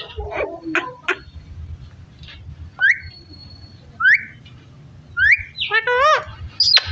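Parrot whistling: three short sweeping whistles about a second apart, then a longer warbling call near the end. A few sharp clicks fall in the first second.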